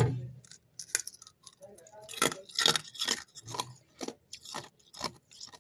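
Freezer frost crunching in a quick run of sharp, crisp crunches, about two to three a second.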